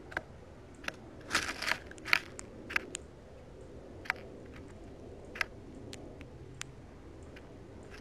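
Irregular sharp clicks and crunches of a female northern cardinal pecking and cracking seed in a birdseed dish close to the microphone, with a quick flurry of them about a second and a half in and single clicks after that.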